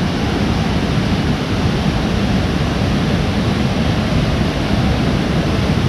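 Loud, steady rush of fast-flowing water from a hill stream swollen by the rains, with a deep low rumble underneath.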